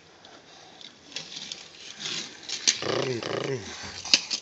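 A voice imitating a car engine: one growling "vroom" that slides down in pitch about three seconds in, with a few light clicks around it.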